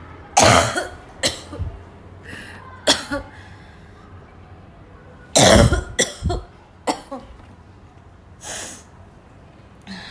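A person in a coughing fit: harsh, barking coughs in clusters of two or three, the loudest about half a second in and again around five and a half seconds.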